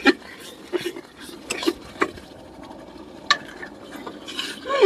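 Metal ladle stirring and scraping in a metal cooking pot, with a handful of separate clicks and scrapes against the pot over a soft steady hiss of masala frying in oil.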